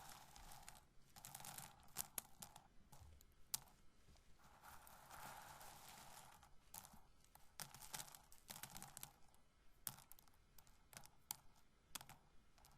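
Roasted corn kernels rubbed and rolled between fingers close to the microphone, in repeated patches of dry crackly rustling, with sharp little clicks of kernels tapping and dropping in between.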